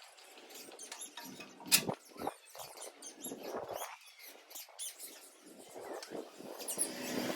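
Irregular scratching and rustling with scattered sharp clicks, the loudest about 1.7 s in: handling noises with no engine running.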